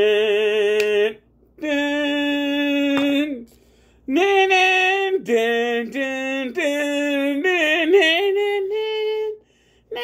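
A man singing a wordless tune in a high voice, held notes of about a second each in several short phrases with brief pauses between them.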